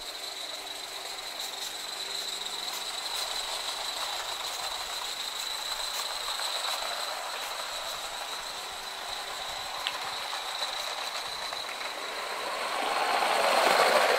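Coal-fired Gauge 3 live steam locomotive hauling a goods train on garden railway track, its wheels rattling and clicking over the rail joints. It gets louder near the end as it passes close by.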